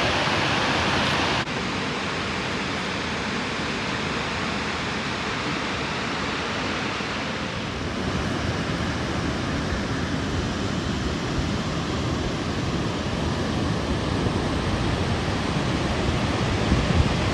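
Steady roar of falling water from Burney Falls, a 129-foot waterfall. It drops suddenly in level about a second and a half in, then carries on steadily.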